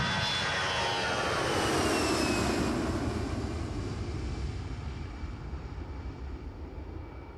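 Jet airliner flying past: a rushing engine roar with a whine that drops in pitch as it goes by, then fades away steadily.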